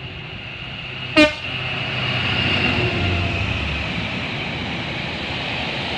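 Diesel freight locomotive giving one very short horn toot about a second in, then running past with its train of box wagons rumbling by on the rails.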